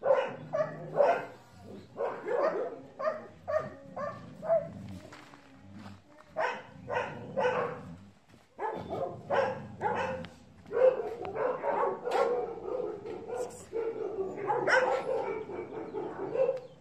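Dogs barking repeatedly in short barks. From about eleven seconds in the barking comes thicker and runs together almost without pause.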